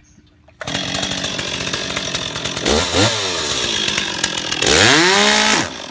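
Two-stroke chainsaw cutting into chainsaw chaps, starting abruptly about half a second in. Its revs rise and fall twice, then it winds down and cuts out near the end as the chap fibers pull into and clog the sprocket, stalling the engine.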